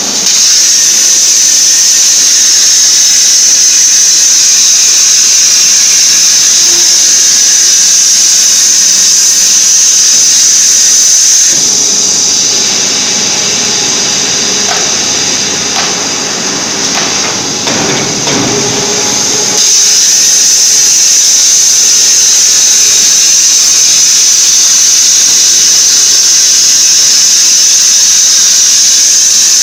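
CNC plasma torch cutting steel plate, a loud steady high-pitched hiss. About 11 seconds in the hiss stops. For roughly eight seconds there is a lower, rougher machine noise with a few knocks, then the cutting hiss starts again.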